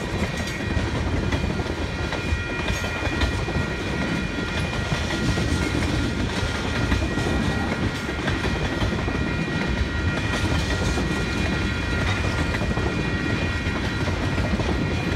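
Freight train of tank cars rolling past at speed: a steady heavy rumble with the wheels clacking over the rail joints.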